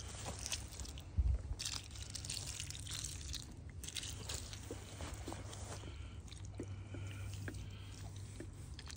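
Buck Jam gel mineral lick being poured from a plastic gallon jug onto shelled corn and dry leaf litter: faint, scattered crackles and crunches of liquid and corn kernels.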